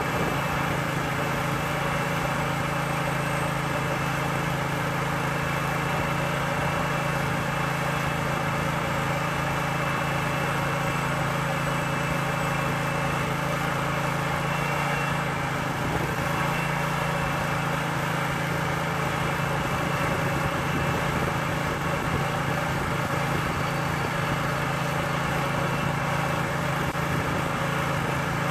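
The onboard engine of an Aust-Mech ADOG drive-over grain pit running steadily at constant speed, driving the hydraulics while the drive-over ramps fold down.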